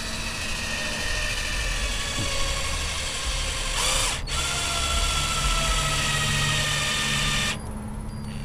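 Cordless drill driving an iGrip ST25R traction stud into a pre-drilled snowmobile track, its motor whine sagging slowly in pitch as the stud threads in. It stops briefly about four seconds in, then runs again and cuts off near the end.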